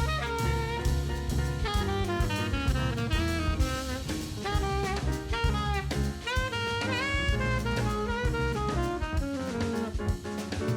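Background jazz music: saxophone or brass melody over a drum kit with a steady beat.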